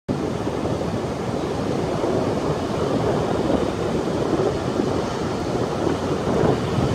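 Heavy surf breaking on a beach, heard as a steady rushing roar, with wind buffeting the microphone.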